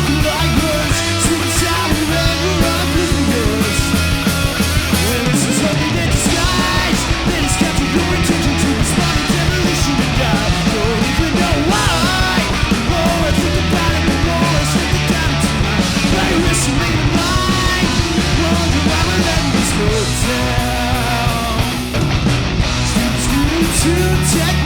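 Punk rock band playing loud, with electric guitar, bass and drums.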